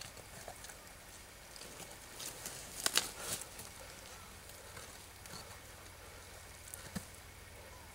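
Faint crackling and rustling of a knife cutting along the spine of a deer carcass to free the backstrap, with a short cluster of louder crackles about three seconds in and a single click near the end.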